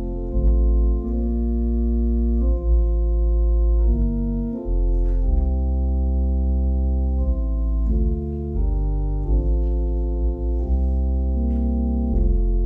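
Organ playing slow, held chords over deep bass notes, the chord changing about every second, like a hymn tune or sung response played without voices.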